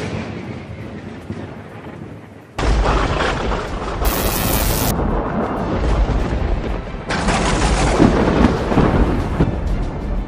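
Edited-in blast sound effects for a magic energy beam: a sudden boom that fades over the first couple of seconds, then a heavier noisy blast with a deep low end about two and a half seconds in, and another surge about seven seconds in.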